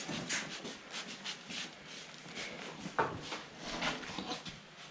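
Hand pump spray bottle squirting onto a package of honeybees to calm them: a string of short hissing squirts, the loudest about three seconds in.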